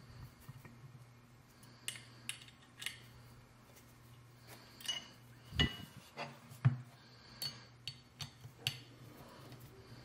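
Small metal parts clinking and clicking as a knife sharpener is put together by hand: an Allen wrench, screws and fittings knocking against the sharpener's parts. About a dozen short, sharp clinks come irregularly, the loudest a little past the middle.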